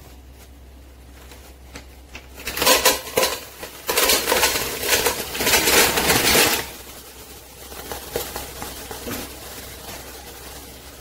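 Mussel shells clattering and rattling against each other and a stainless steel pot as a pile of them is pushed by hand into it, loudest from about two to six and a half seconds in; a few lighter clinks follow as the shells settle.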